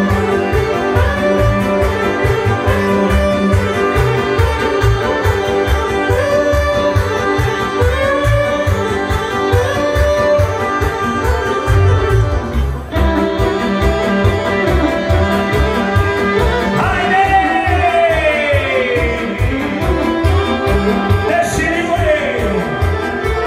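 Loud Serbian folk dance music played through PA loudspeakers, with an even, fast beat under a melodic lead that slides up and down in pitch in the second half.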